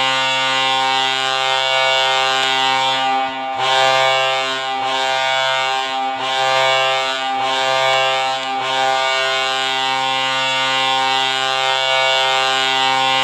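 Vegas Golden Knights' hockey goal horn sounding to signal a goal: one loud, many-toned horn. It breaks briefly about three and a half seconds in, wavers a few times over the next five seconds, then holds steady.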